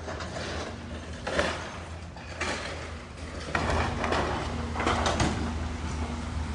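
Cat long-reach excavator demolishing a wooden mill building: the machine's engine runs steadily underneath while timbers and sheet metal crack, scrape and crash as its grapple tears at the structure. The crashes come about a second and a half in, briefly near two and a half seconds, and loudest in a run from about three and a half to five and a half seconds.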